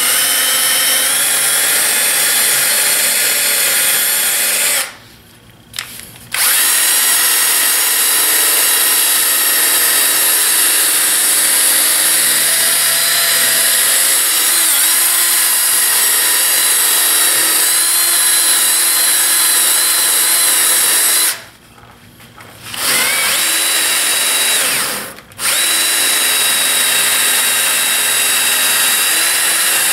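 Power-driven wire wheel brush whirring as it scrubs dried glue off the steel jaw edges of a bar clamp. It runs steadily, stops for about a second twice (around 5 s and 21 s), and dips briefly near the end.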